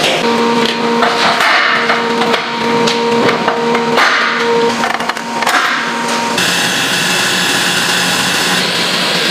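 Processing-plant noise: a steady hum with clattering and knocks. About six seconds in it changes to a steady rush of water churning in a napa cabbage washing tank.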